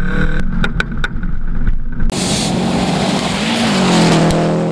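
Turbocharged rally car engine running, with sharp pops and bangs from the exhaust typical of anti-lag. About two seconds in a loud rush of noise sets in as the car goes by, and the engine note falls near the end.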